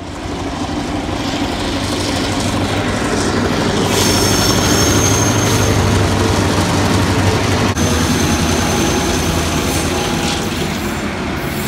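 Heritage passenger train running, heard from aboard: a steady rumble of carriage wheels on the track, with high wheel squeal about four seconds in and again about eight seconds in.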